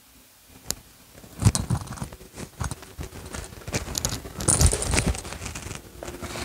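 Handling and movement noises of a person getting up and settling onto a yoga mat: a sharp click about a second in, then rustling clothing, footsteps and dull thumps, the loudest about a second and a half in and again near five seconds as she sits down cross-legged.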